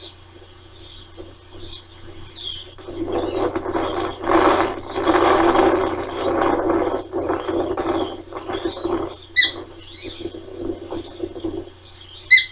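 Ospreys at the nest: short high chirps repeat throughout, and two sharper, louder calls come near the end. Over the middle few seconds a loud, rough, ratchety rasping noise covers them.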